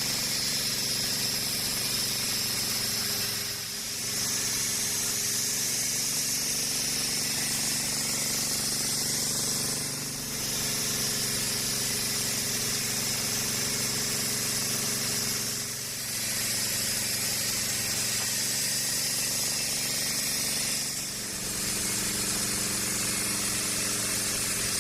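Sawmill running: a steady machine hum under the hiss of the saw cutting through an acacia log. The sound briefly drops about every six seconds, four times in all.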